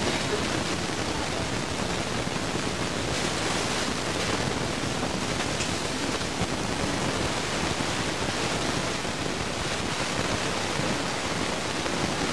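Steady hiss with no distinct events: the noise floor of a home-video camcorder recording.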